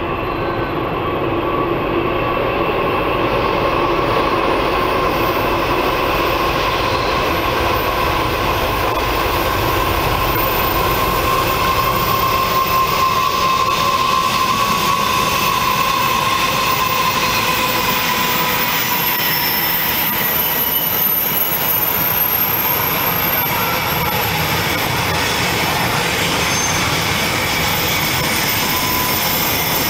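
Four NR class General Electric diesel-electric locomotives hauling a container freight train pass close by, their engines running loud and steady with a whine that fades out about two-thirds of the way through. The container wagons follow, rolling over the rails with a thin high wheel squeal on the curve.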